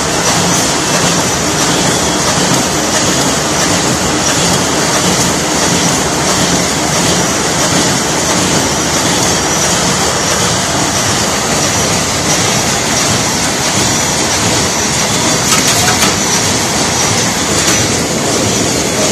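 Wet-wipe packaging line with a high-speed checkweigher running at about 150 packs a minute: conveyor belts and machinery make a steady, even machine noise, with one brief louder clatter late on.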